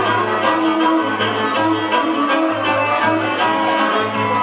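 Live forró played on two rabecas, Brazilian folk fiddles, with a zabumba bass drum and bass. Bowed fiddle melody over a steady drum beat and repeated low bass notes.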